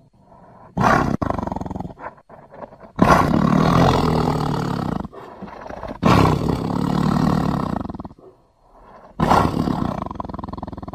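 Custom creature sound effects for a Gwythaint, a dragon-like bird monster, roaring four times: a short call about a second in, then two long calls of about two seconds each, and another near the end.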